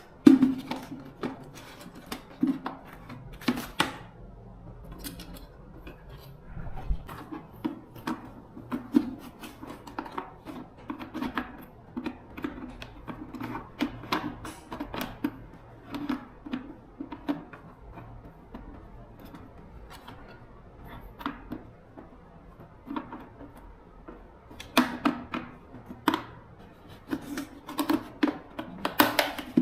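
Irregular clicks and knocks of tools and small hard parts being handled, several with a short ring; the loudest knock comes just after the start, with a denser cluster near the end.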